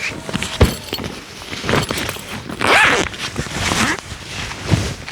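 Irregular rustling and knocking handling noises, with a longer rasp near the middle.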